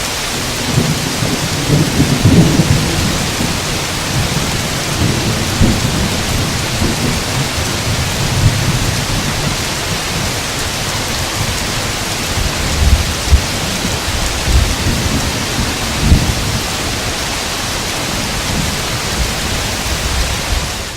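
Thunderstorm: steady heavy rain with rolling thunder, a long rumble about two seconds in and more rumbles with sharper cracks around the middle. The track cuts off at the end.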